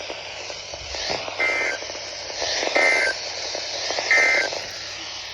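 Three short data bursts of the Emergency Alert System end-of-message code, a rapid two-tone warble about a third of a second each and about 1.3 s apart, over steady weather-radio static. They signal the end of the tornado warning broadcast.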